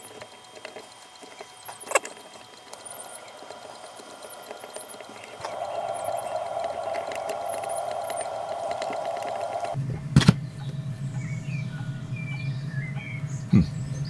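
Small lathe running steadily as a die cuts the thread on a tiny steel clock-crown screw blank. Its hum changes abruptly to a lower pitch about ten seconds in, with a sharp knock at that moment.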